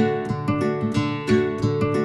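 Background music: an acoustic guitar playing a quick run of picked notes and strummed chords.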